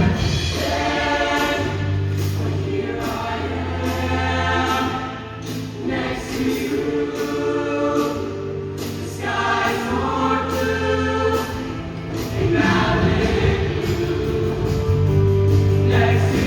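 High school show choir singing a song in several voices over sustained low notes of instrumental backing.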